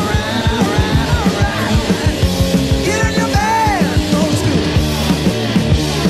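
Hard rock band playing live: electric guitar with bending notes over bass and a steady, driving drum beat.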